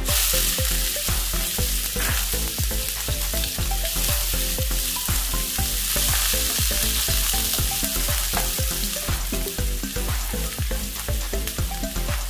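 Chopped onions sizzling in hot oil in a nonstick frying pan, a dense hiss that starts suddenly as they are tipped in, with a spatula stirring them through the pan. Background music with a steady beat plays underneath.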